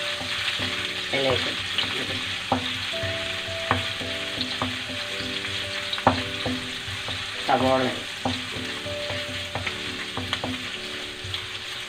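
Crushed garlic and ginger sizzling as they sauté in hot oil in a pan, with a steady frying hiss and sharp clicks every second or so as they are stirred.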